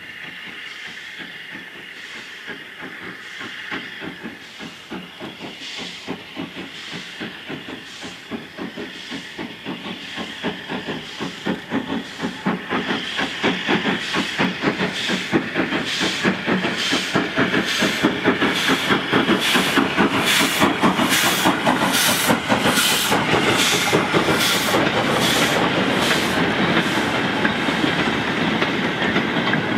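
LNER N7 0-6-2 tank steam locomotive starting away with a freight train. Steam hisses at first, then its exhaust beats come in a regular rhythm, growing steadily louder and sharper as it draws near, with the sharpest beats about every two-thirds of a second in the second half.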